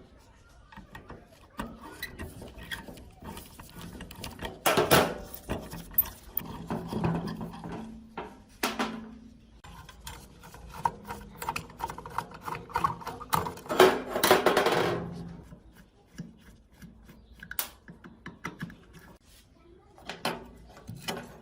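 Irregular scraping and rubbing strokes with scattered clicks and knocks, as of hand work with a file or abrasive; two longer, louder scrapes come about five seconds in and again around fourteen seconds.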